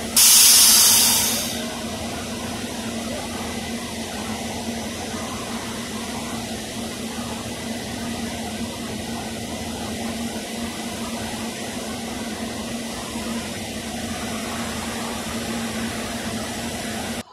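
A loud burst of hissing air for about a second and a half, then the steady hum and whir of a stationary SEPTA electric commuter railcar's onboard equipment with a constant low tone.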